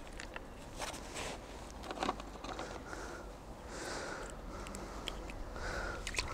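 Faint rustling and a few small clicks of hands handling a pole-fishing rig at the hook, over a low steady background hum.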